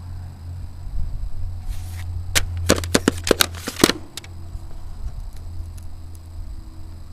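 A quick run of about eight sharp clicks and taps, a little over two seconds in and lasting about a second and a half, over a steady low hum: handling noise from a camera held close against CD cases.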